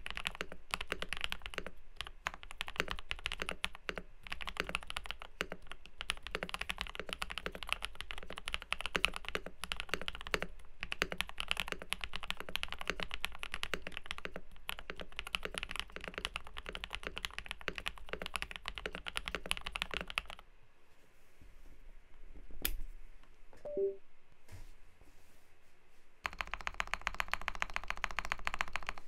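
Typing on a KBD67 Lite R2 custom mechanical keyboard with lubed, filmed Durock POM switches, a polycarbonate plate and PBT keycaps: a fast, steady run of keystrokes. About two-thirds of the way through the typing stops for several seconds, with a single sharp click in the pause, then resumes densely near the end.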